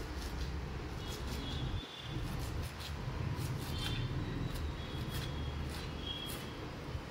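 Kitchen knife chopping fresh coriander on a wooden board: light, irregular taps about one or two a second over a steady low hum.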